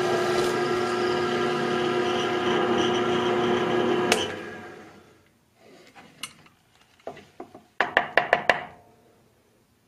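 Bench drill press motor running steadily with a whine of several fixed tones, switched off about four seconds in with a click and spinning down over about a second. Then a quick run of sharp wooden knocks as the drilled plywood block is handled on the drill press table.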